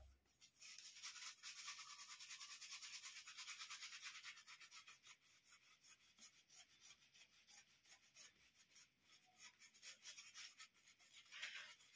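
Synthetic shaving brush scrubbing in hard shaving soap: faint, quick, rhythmic brushing strokes, about five a second, strongest in the first few seconds and then thinning out.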